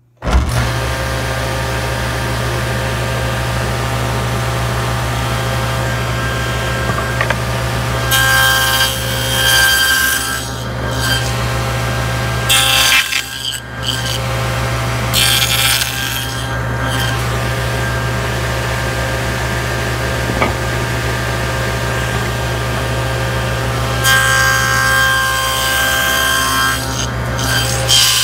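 Electric power saw running with a steady motor hum, cutting a dado into a wooden framing piece. The blade bites into the wood in four louder, hissing passes over the hum.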